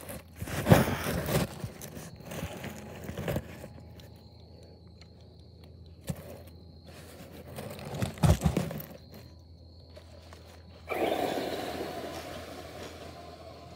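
Traxxas RC car driving on grass in bursts of throttle, its tyres scrabbling over the turf. A few seconds before the end a longer spell of wheelspin throws up dirt and slowly fades.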